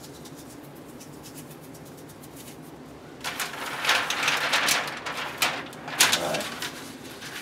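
Oiled parchment paper crinkling and rustling as it is lifted and handled, a loud crackly rustle that starts about three seconds in, with faint scattered ticks before it.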